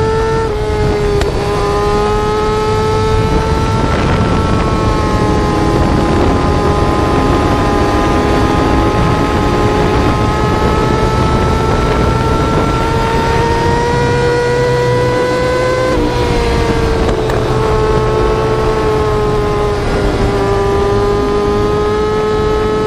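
Yamaha R6 inline-four engine note held at high revs. The high pitch creeps slowly upward, then drops suddenly near the start and again at about 16 and 20 seconds, like upshifts.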